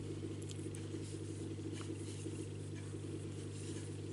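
Steady low hum with faint soft scratching and a few light ticks of fingers handling crochet thread.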